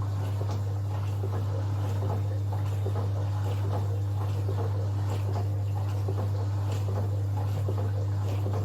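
Cookology CMDW2 countertop dishwasher running mid-wash: a steady low hum with a fine spattering of water spraying inside the tub.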